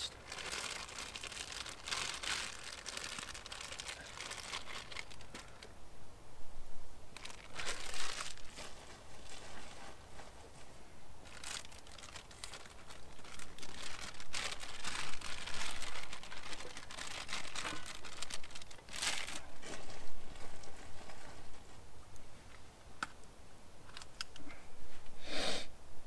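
Plastic food packaging crinkling and rustling as it is handled, in irregular bursts, with a louder rustle near the end.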